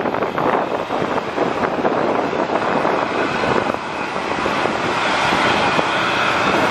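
Mercedes-Benz coach bus engine running under load as the bus drives, heard from close behind, mixed with wind on the microphone and the following motorbike. It grows a little louder after about four seconds.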